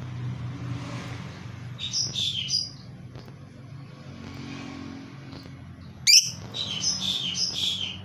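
Blue masked lovebird chirping in shrill bursts: a short burst about two seconds in, then a sharp, loud call about six seconds in followed by a quick run of chirps. A steady low hum runs underneath.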